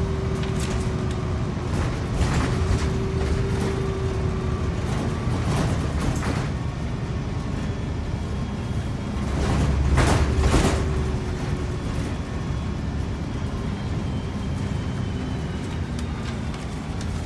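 Inside a city transit bus under way: the engine and road noise make a steady low rumble under a faint whine, with scattered knocks and rattles from the body and fittings. About ten seconds in, a louder jolt brings a swell of rumble and clatter.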